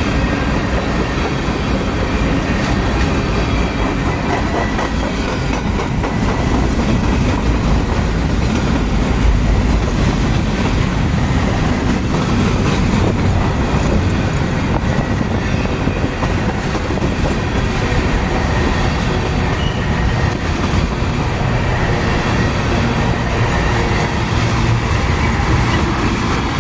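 Freight train cars rolling steadily past, their wheels clattering over the rails, with a faint squeal from the wheels now and then.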